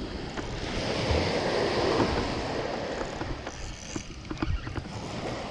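Small waves breaking and washing up a sand beach, swelling about two seconds in and then easing, with a few faint clicks.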